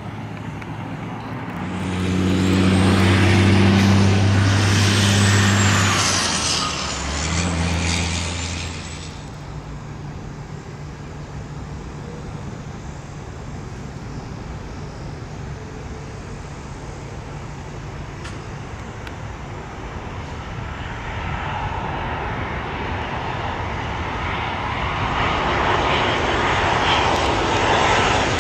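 A vehicle passes close by in the first few seconds with a steady engine tone that drops in pitch partway through. Near the end, the engine noise of an approaching jet airliner builds steadily louder.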